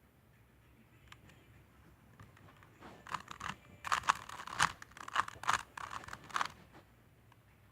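Plastic Rubik's cube being turned quickly by hand: a run of rapid clacking, scraping face turns for about three and a half seconds in the middle.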